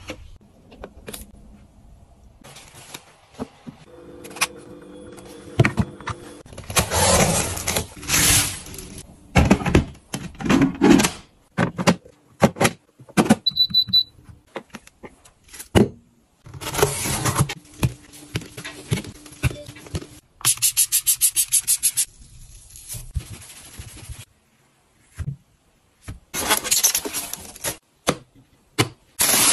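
Household items being handled: a string of scrapes, knocks and clicks. A short, high electronic beep sounds as a button is pressed on a dish-drying cabinet's control panel, and near the end of the middle stretch comes a fast, even run of clicks.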